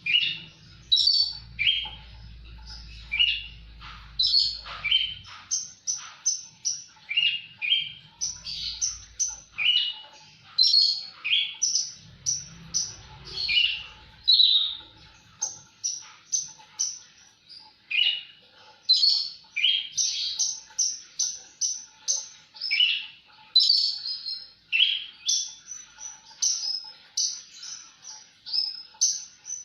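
Australasian bush lark (branjangan) singing continuously in full voice: a rapid, unbroken run of short high chirps and trills, several notes a second.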